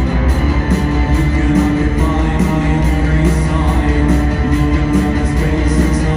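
Live rock band playing: electric guitars, bass, synth keyboard and drums at full volume, with a steady driving beat.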